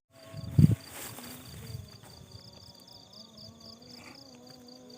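Insects trilling steadily in a fast high pulsing chirp, with a dull thump about half a second in.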